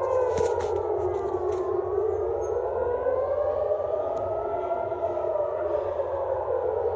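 Air raid siren wailing, its pitch slowly gliding down, then up, then down again.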